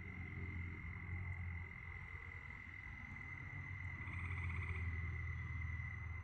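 Night chorus of croaking frogs, with a steady high-pitched trill of crickets behind it. A short, rapidly pulsed call joins about four seconds in.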